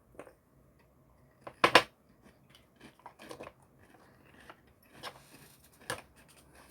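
Crunchy Cheetos being bitten and chewed, a few sharp, irregular crunches, the loudest pair about a second and a half in.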